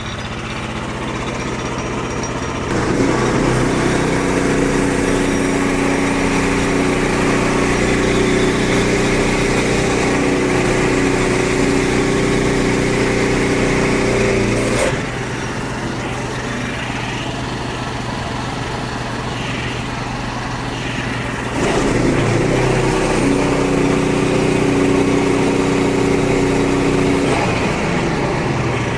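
Small gasoline engine of a Frontier OS23 portable bandsaw mill running throughout. It gets louder and steadier twice, from about three seconds in to about fifteen and again from about twenty-two to twenty-eight seconds, as the band blade saws through a tulip poplar log, and drops back in between.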